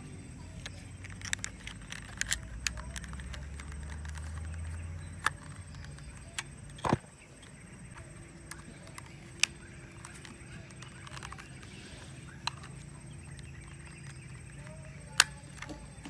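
Irregular small plastic clicks and handling noises from a Kodak M35 film camera as film is threaded and its top knob is turned, one sharper click near the end. A low steady hum lies underneath in the first few seconds.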